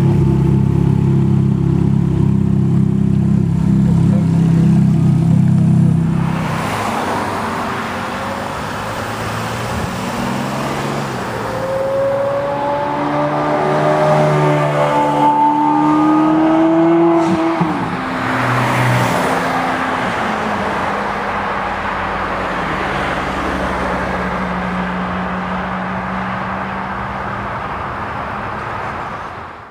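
Twin-turbo Ferrari F430 Scuderia V8 running. At first it holds a steady low note, then it accelerates hard past, its engine note rising through the revs. About two-thirds of the way through comes a gear change, and the car pulls away, fading into the distance.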